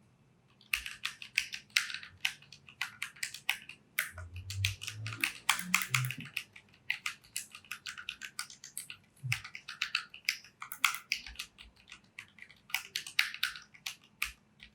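Typing on a Keychron K3 low-profile mechanical keyboard with Gateron switches: a rapid, irregular run of sharp key clicks that starts about a second in, with short pauses around four seconds in and near the end.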